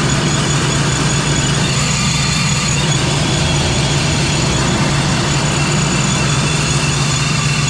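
Procharger-supercharged V8 in the Trailblazer idling steadily, with the D1-X supercharger's steady high whistle over the engine's low hum.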